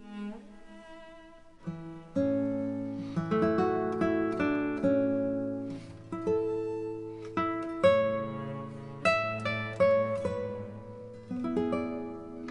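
Background music: plucked acoustic guitar with a bass line, picking up after a quiet start about two seconds in.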